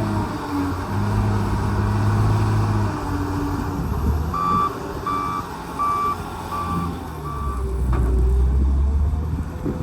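Heavy-equipment diesel engine running and revving up and down as a loader works a dump truck. Midway a reversing alarm beeps five times, about one beep every 0.7 s.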